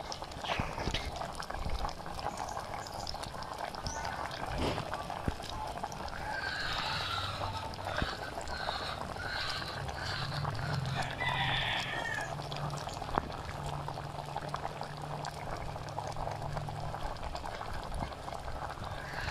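Fish soup boiling hard in a stainless steel pot, a steady bubbling; chickens cluck in the background, mostly around the middle.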